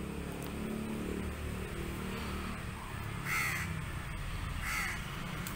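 A crow cawing twice, about a second and a half apart, over a low steady hum.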